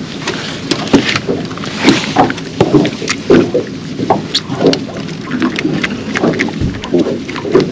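A Japanese gurnard (houbou) flopping on a fibreglass boat deck: irregular slaps and knocks, about one a second, with short low croaking grunts from the fish in between.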